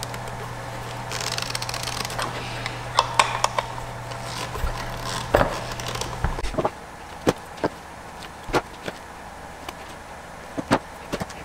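Small clicks, taps and scrapes of a screwdriver and hand-held parts at a solid-state relay and its metal heatsink, over a steady low hum that stops about two-thirds of the way in. After the hum stops there are a few separate sharp clicks.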